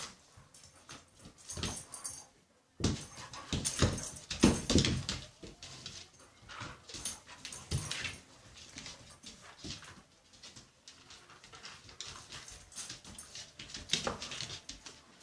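Border collies play-fighting: short dog vocalisations and scuffling noises in irregular bursts, loudest about four to five seconds in, with a brief break after about two and a half seconds.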